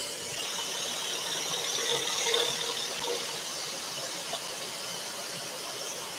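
Scroll saw running, its reciprocating blade cutting through a tulipwood panel: a steady mechanical noise.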